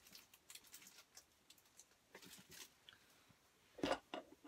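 Faint rustling and small clicks, then about four seconds in a sharp knock and a lighter tap as a plastic handheld stitching tool is picked up off a hard desktop.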